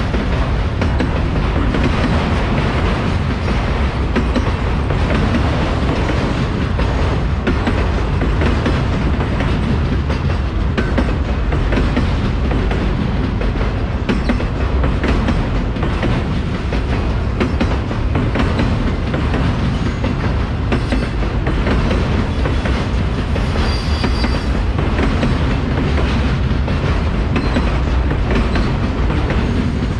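A freight train of loaded autorack cars rolling steadily past, steel wheels clicking over the rail joints over a continuous low rumble.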